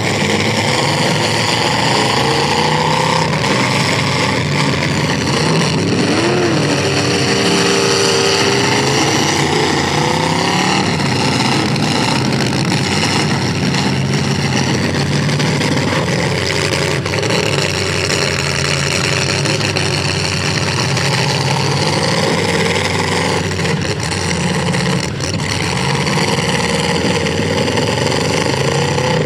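Several full-size demolition derby cars' V8 engines revving up and down over one another in a continuous loud din.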